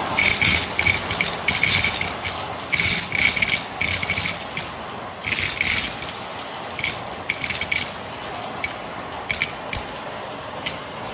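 Vacuum cleaner running steadily while its crevice tool sucks up dry kibble from a rug, the pellets rattling up the wand in quick clusters. The rattling is dense for the first six seconds or so, then thins to a few scattered clicks as the last pieces go.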